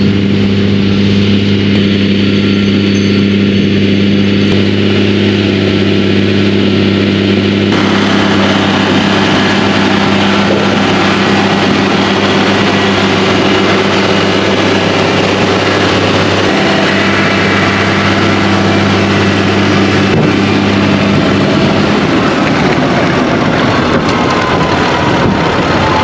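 Tractor engine running steadily on the road while towing a dung spreader, with road and tyre noise growing louder about eight seconds in. The engine note shifts a little near the end.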